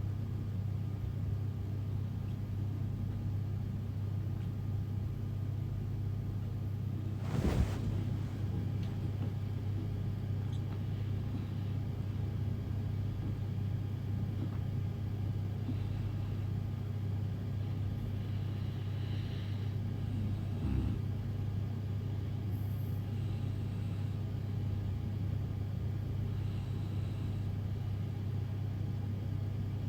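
A steady low hum from a running motor, unchanged throughout, with one sharp knock about seven and a half seconds in.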